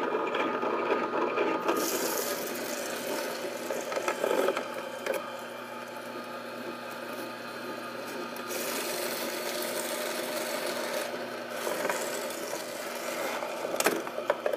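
Tribest Greenstar Elite twin-gear masticating juicer crushing celery stalks as they are pushed down the chute into its slow-turning gears: a continuous grinding crunch over a steady motor hum, with louder crunches about four seconds in and near the end.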